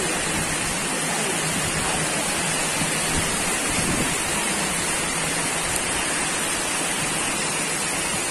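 Torrential rain pouring down, a steady unbroken hiss.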